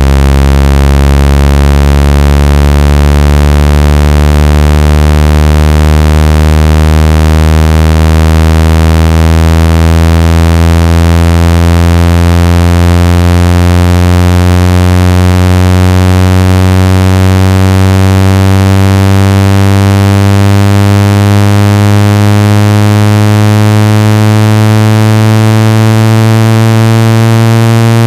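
Synthetic buzzing tone, loud and rich in overtones, sliding slowly and steadily upward in pitch: a speaker water-ejection tone, played to shake water out of a phone or earphone speaker.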